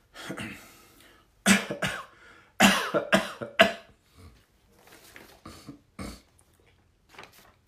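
A man coughing: a string of loud, short coughs between about one and a half and four seconds in, followed by a few quieter ones.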